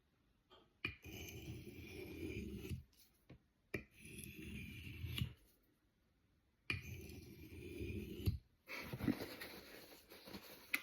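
Knife blade drawn across a natural sharpening stone in slow scraping strokes, about four of them with short pauses between.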